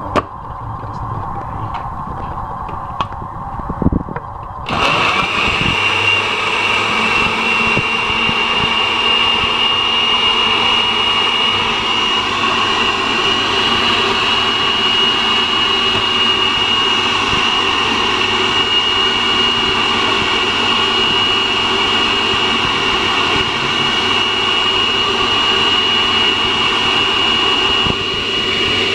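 Oster countertop blender puréeing a watery marinade of onion, tomato and garlic. It runs at a lower speed with a few knocks at first. About five seconds in it jumps suddenly to a louder, higher speed with a steady high whine, and keeps running evenly.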